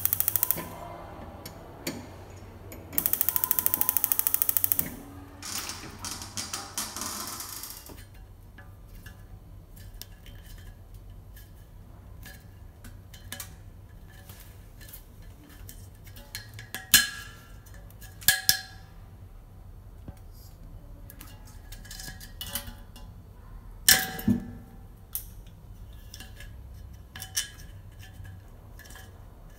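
Gas hob's electric igniter clicking rapidly in two bursts in the first five seconds, with no flame catching, as when the LPG cylinder has run out. Later come a few sharp metallic clinks from handling the cylinder's regulator.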